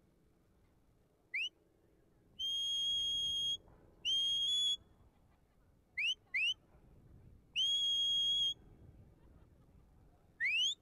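Sheepdog handler's whistle commands to a working border collie: a series of clear high whistles, some long and level and some short upward flicks, with two quick flicks in a row about six seconds in.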